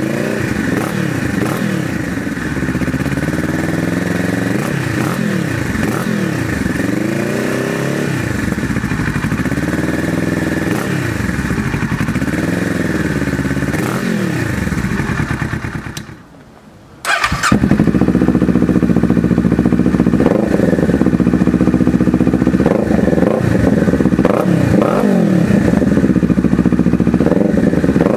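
Kawasaki Z650 parallel-twin engine running through an IXIL L3XB exhaust, idling and revved up and down in repeated short blips with the baffles fitted. After a brief break about two-thirds of the way in, the same engine idles a little louder with a few more blips, now with the baffles removed.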